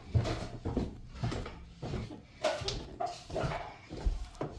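A household pet whining, a run of short cries one after another.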